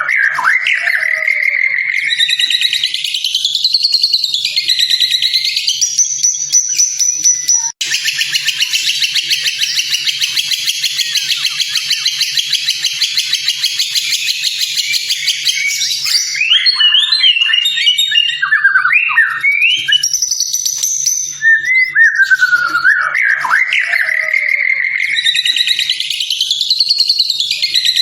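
White-rumped shama (murai batu) song: loud whistled phrases sliding up and down, then a long, fast, buzzy trill of about eight seconds starting about eight seconds in, followed by quick chattering notes. The same opening whistled phrase comes again about 22 seconds in, as in a looped recording.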